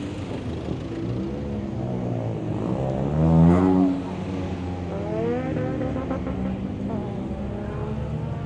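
Cars in a slow parade driving past one after another, engines running at low revs. About three seconds in, one car revs hard, its engine pitch rising and falling; it is the loudest sound.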